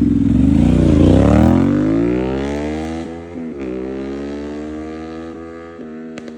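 Aprilia RS 457's parallel-twin engine running through an SC-Project aftermarket exhaust, revving up: the note climbs, falls sharply a little past halfway, climbs again and falls once more near the end, getting gradually quieter. Sharp crackles from the exhaust start right at the end.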